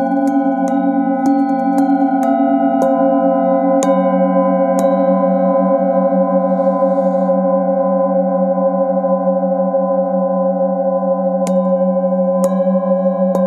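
Metal singing bowls struck with a mallet about every half second at first, then left ringing for several seconds, then struck twice more near the end. Several overlapping tones sustain throughout with a wavering beat.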